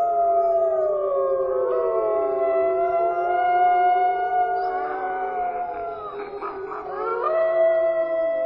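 A wolf pack howling in chorus: several long howls overlap at different pitches, some sliding down. Short, broken yips come about halfway through, and a fresh howl rises in near the end.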